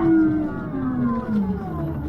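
City bus's drive whine sliding slowly and smoothly down in pitch, as the bus slows.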